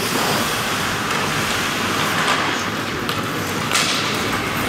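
Rink noise of an ice hockey game in play: a steady rumble and hiss of skates on ice, with one brief sharp sound about three and a half seconds in.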